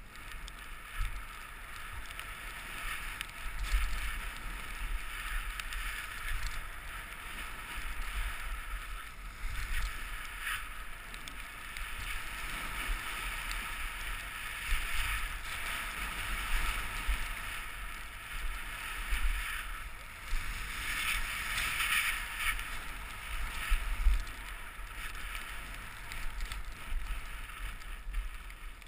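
Snowboard sliding and carving over fresh snow: a steady hiss that swells and fades with each turn, with wind rumbling on the microphone.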